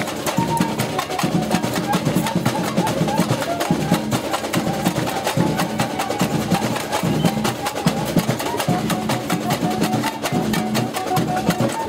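Street percussion band playing a fast, steady rhythm on snare-type drums, small hand-held drums struck with sticks, and metal shakers. The drum strokes come thick and even, without a break.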